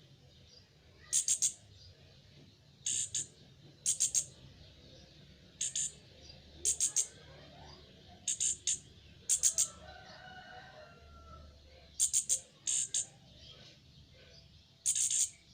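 Juvenile anis kembang (chestnut-capped thrush) calling: short, sharp, high notes, mostly in pairs or threes, repeated about every one to two seconds.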